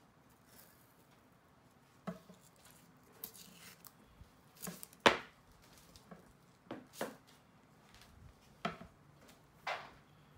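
Masking tape being pulled off its roll and wrapped around a cue shaft, in a series of short crackling rips, the loudest about five seconds in.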